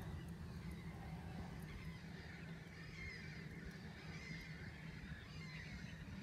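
Wind rumbling on the microphone, with faint, wavering high-pitched calls over it.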